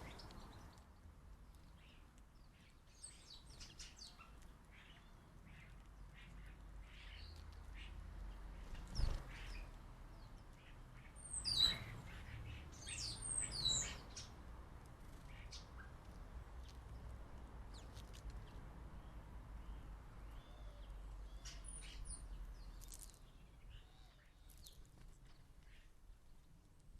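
Small garden songbirds chirping and twittering on and off at a feeder, with a louder run of high, sliding calls about halfway through. A single sharp knock sounds shortly before it.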